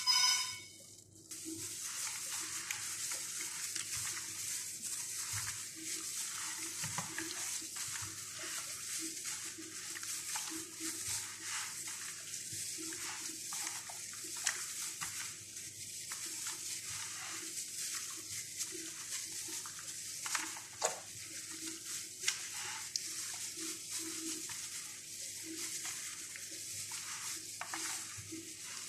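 Chicken pieces being hand-mixed in a thick, wet yogurt-and-spice marinade by a hand in a thin plastic glove, in a plastic basin: continuous irregular squelching and rustling with soft slaps of meat against the marinade.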